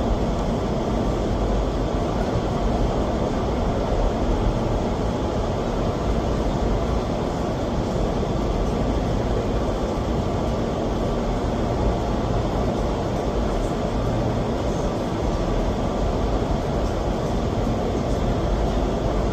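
Indoor skydiving vertical wind tunnel running at flying speed: a steady, even rush of air and fan noise, heaviest in the low end.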